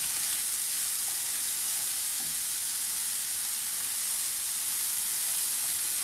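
Sliced Amanita villosa mushrooms sizzling steadily in a hot nonstick pan while they are turned with wooden chopsticks. It is the dry-fry stage: a few pieces are still wet and their water is cooking off as steam.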